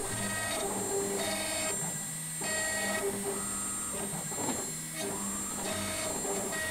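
Home-built CNC router running a carving pass: its stepper motors whine in tones that jump and change pitch every half second or so as the axes move and reverse, over a steady high whine from the spindle.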